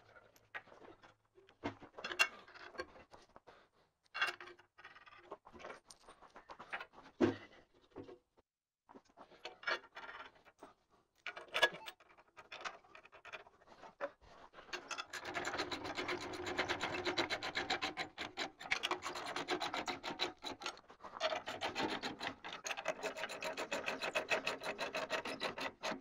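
Scattered metallic clanks and knocks as the steel lid and bolts of a hammer mill are fitted. After that comes a long run of rapid, even clicking from a socket ratchet tightening the lid bolts, with a short pause partway through.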